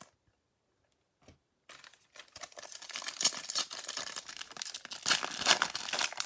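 Foil wrapper of a baseball card pack being torn open and crinkled by hand. It starts about two seconds in, after a near-silent pause, and gets louder toward the end.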